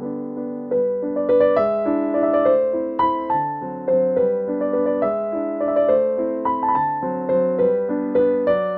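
Background piano music: a gentle melody of struck notes that fade, over chords.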